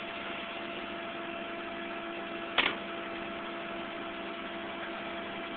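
Tow truck running with a steady hum, and a single sharp knock about two and a half seconds in.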